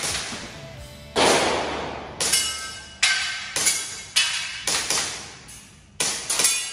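A string of about eight airsoft gas pistol shots fired in quick succession, irregularly spaced half a second to a second apart, each a sharp report with a short ringing tail.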